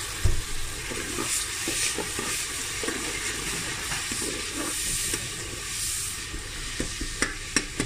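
Onion-tomato masala with a little water just added, sizzling and bubbling in hot oil in a pressure cooker pot, a steady hiss. A short knock comes just after the start and a few sharp clicks come near the end.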